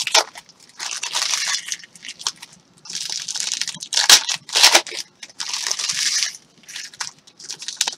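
Football trading-card packs and cards being handled. There are three short bursts of rustling, crinkling swishes as the cards are leafed through, and two sharp snaps about four and four-and-a-half seconds in.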